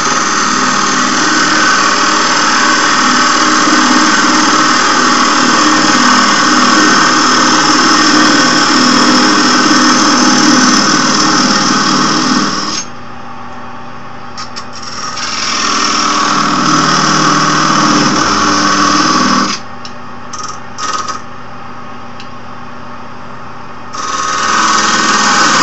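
Wood lathe running with a tool cutting into a hard oak blank. The cutting noise is loud for the first half, eases back to the plain running hum, then swells again twice as the tool goes back into the wood.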